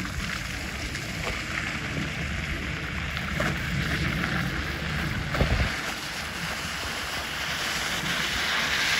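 Wind buffeting the microphone over a Renault Scénic's engine and tyres on an icy, snow-covered forest track, as the car attempts the slippery climb and comes back down. A louder low gust comes about five and a half seconds in.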